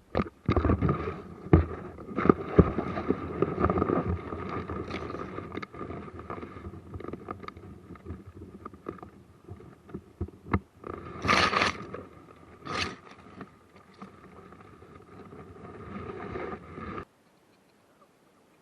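Irregular rustling and scraping with many scattered sharp clicks, and two short hissing bursts about 11 and 13 seconds in; it cuts off suddenly about a second and a half before the end.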